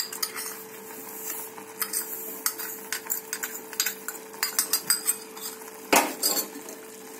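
Steel spoon clinking and scraping against a small steel cup as sugar is spooned out into a cooking pan: many light, quick clinks, with a louder clatter about six seconds in.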